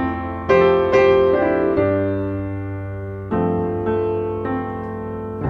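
Background piano music: gentle piano chords that are struck and left to fade, a new chord about every one to one and a half seconds.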